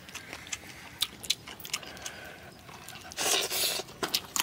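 Close-up eating sounds: boiled chicken pulled apart by hand, with scattered wet clicks and small tearing noises, then a louder stretch of biting and chewing about three seconds in.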